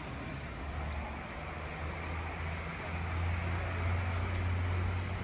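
An engine running steadily at low revs, a low hum that gets louder about three seconds in.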